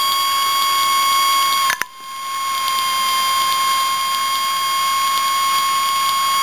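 Hacked floppy-drive spindle motor, running fast on a 7.2 V battery and turning a small fan through belts, gives off a steady high whine. Its speed sensing is bypassed, so it runs flat out. A click and a brief dip in level come about two seconds in.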